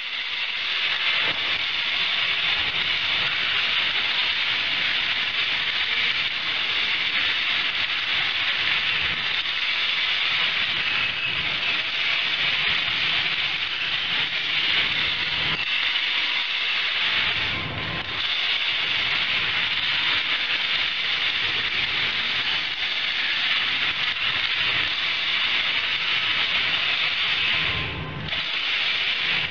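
Pebbles tumbling inside turning bicycle-wheel drums of wire mesh: a steady rushing hiss like rain, easing off briefly twice.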